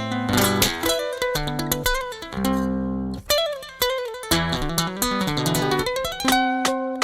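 Instrumental music with quick runs of plucked guitar notes.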